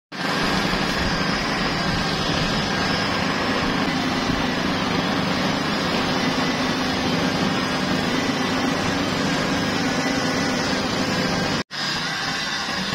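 Crane's engine running steadily under load while hoisting a concrete bucket, a low, even hum. It cuts out for an instant near the end and resumes a little quieter.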